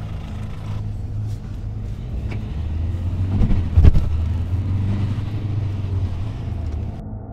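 Car engine running, swelling to a brief rev about halfway through as the car pulls away, then easing off, over a steady low hum.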